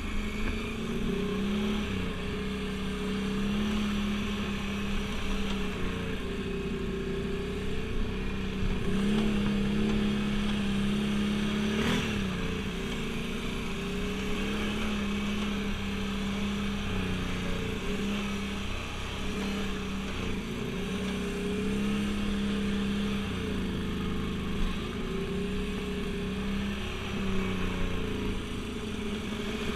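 ATV engine running under way on a dirt trail, its pitch rising and falling again and again as the throttle is opened and eased off. A single sharp knock about twelve seconds in.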